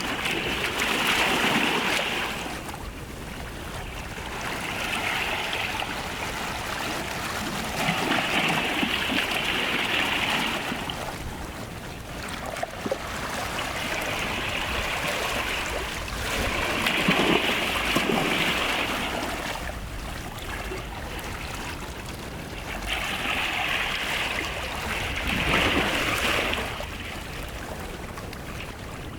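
Small sea waves washing up on a beach and drawing back, the hiss of the water swelling and fading every few seconds.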